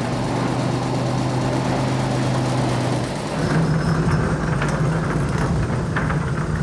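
Truck engine running steadily with a low hum, the hum shifting to a somewhat higher pitch about three seconds in.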